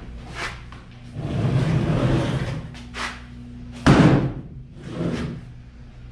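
A large wooden frame skinned with a black plastic sheet being tipped down and laid flat on a concrete floor. There is a rushing scrape of about a second and a half, then a loud knock about four seconds in as it lands, and a few lighter knocks as it is shifted.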